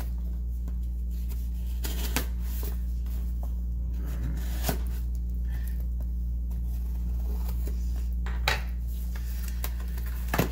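A folding knife blade slitting packing tape on a cardboard box, with scattered scrapes and a few sharp clicks as the box is handled. Under it runs a steady low electrical hum.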